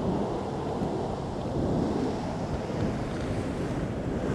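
Wind buffeting the microphone over the steady wash of ocean surf on a beach.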